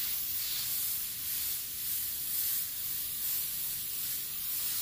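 Airbrush hissing as it sprays paint, steady with small swells in loudness.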